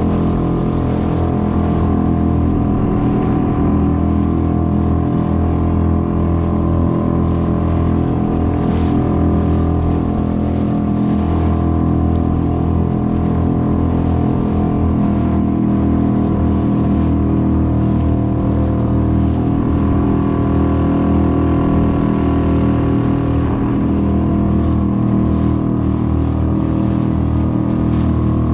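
Small 2 hp outboard motor running steadily at constant speed, pushing the kayak along.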